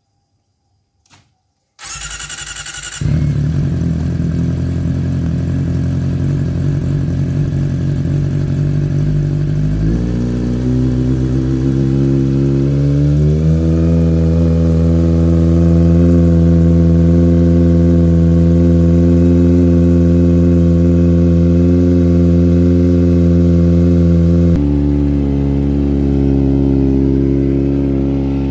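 Kawasaki Ninja ZX-25R's 250 cc inline-four, breathing through an Austin Racing GP1R slip-on exhaust with the catalytic converter removed, is cranked by its starter and catches after about a second. It settles into a steady idle. The idle speed steps up twice and holds, then drops back a little near the end.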